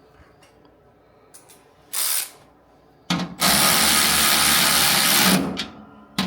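Power tool running in bursts while backing out fender bolts: a short burst about two seconds in, a longer run from about three seconds that dies away, and another start just before the end.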